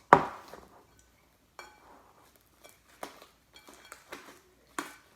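Homemade slime being kneaded by hand in a bowl: one loud knock just after the start, then scattered short taps and clicks against the bowl.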